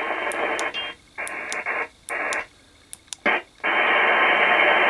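Static hiss from the Aquário RP-70 CB radio's speaker, cutting in and out in several short bursts as the radio is switched from FM to AM, then settling into a longer stretch of steady hiss about three and a half seconds in.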